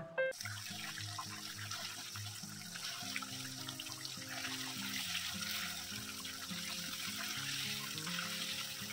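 Curry sizzling and bubbling in a frying pan on a gas stove: a steady hiss with fine crackles. Soft background music with slow low notes plays underneath.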